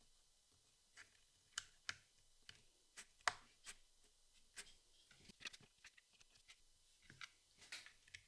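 Jigsaw puzzle pieces being handled and set down: a string of light, irregular clicks and taps, the sharpest about three seconds in.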